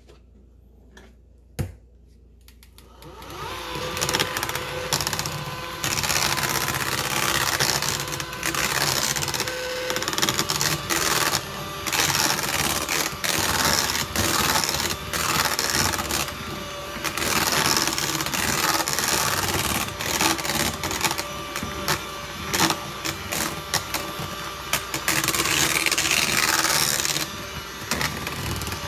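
Battery-powered KitchenAid hand mixer starting up about three seconds in and then running steadily, its wire beaters churning a thick mash and clattering against a stainless steel saucepan. A single sharp click comes just before it starts.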